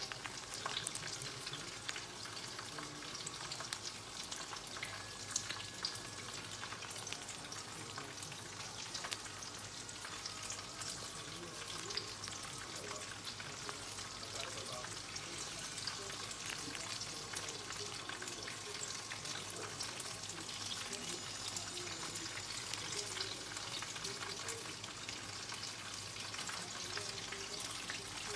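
Hot oil sizzling in a fryer, a steady dense crackle of many fine pops, as batter-coated food deep-fries.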